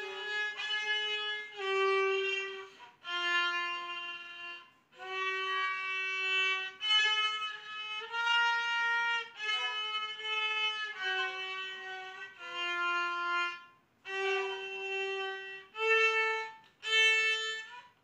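A child playing a slow, simple melody on a violin, one bowed note at a time. Each note is held for about a second, with short breaks between bow strokes.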